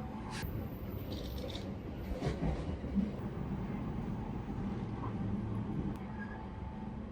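Steady low rumble of a moving train, with a few light clicks and knocks over it.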